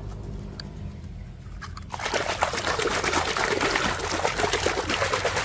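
Water splashing and sloshing as a hand swishes a muddy toy around in shallow water; it starts suddenly about two seconds in. Before that, a few faint clicks of plastic toys knocking in a basket.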